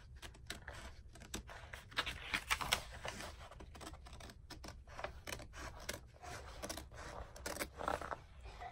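Scissors cutting through a printed paper sewing pattern: irregular snips, with the paper sheet rustling as it is turned and lifted.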